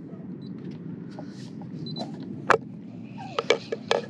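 Shimano Stradic 3000 spinning reel being cranked to retrieve a lure, over a steady low rumble. There is one sharp click about two and a half seconds in, then a quick run of several clicks and taps near the end.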